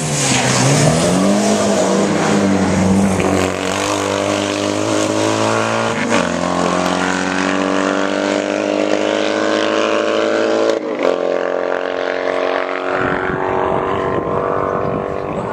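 A classic racing sidecar outfit's engine passing close at speed, its pitch dropping as it goes by. It then holds high revs as it pulls away, with sudden gear changes about six and eleven seconds in, and fades with distance near the end.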